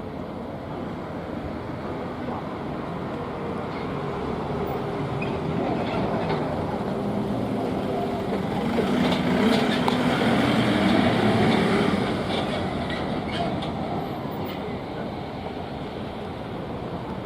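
Traffic noise at a road and rail crossing. A vehicle passes close and swells to its loudest about nine to twelve seconds in, then fades.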